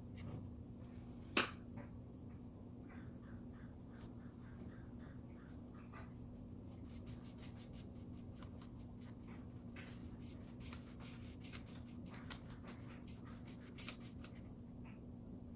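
Paintbrush bristles stroking paint onto a wooden drawer front: a run of soft, scratchy swishes, quick and dense in the second half. A single sharp click about a second in is the loudest sound, over a faint steady low hum.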